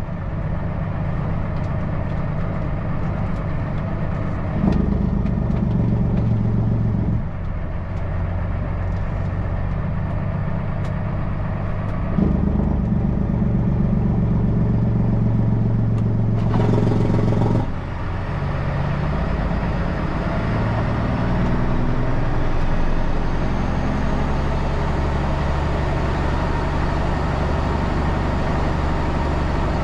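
Kenworth C500 heavy truck's engine running while driving, heard steadily from the cab, its note changing several times as the revs and load shift.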